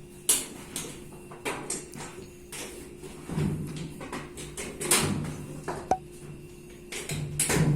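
Washing machine cabinet and parts being handled and turned over: a string of irregular knocks, clicks and scrapes of plastic and metal, with a heavier thump near the end.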